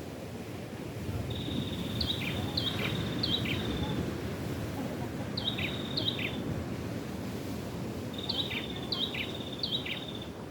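A bird calling three times, each phrase a short buzzy trill followed by two or three sharp downward-slurred notes, over a steady low rush of surf and wind.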